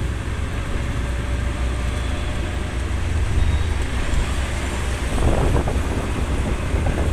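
Steady rumble of a moving vehicle's engine and road noise, heard from inside the open-sided vehicle with wind on the microphone. The sound grows louder for a moment about five seconds in.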